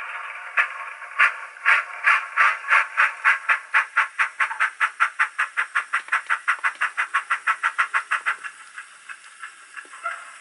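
Zimo digital sound decoder in a Bachmann NG7 Quarry Hunslet model locomotive playing steam exhaust chuffs through its onboard speaker, with the beats quickening steadily as the loco picks up speed, to about five a second. The chuffs stop about eight seconds in, leaving a soft hiss.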